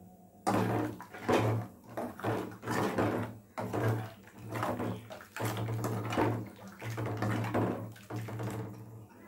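Steel ladle stirring ground masala into water in a metal kadai: repeated sloshing and scraping strokes, about two a second.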